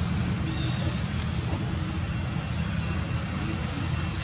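Steady low rumbling background noise with an even hiss above it.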